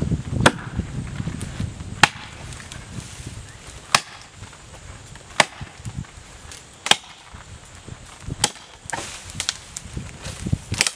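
Double-bit axe chopping into a hard honey locust trunk: six sharp strikes about a second and a half apart, then several lighter, quicker blows near the end.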